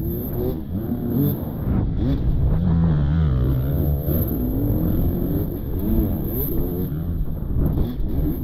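Several dirt bike engines revving up and down together, their pitches rising and falling and overlapping steadily.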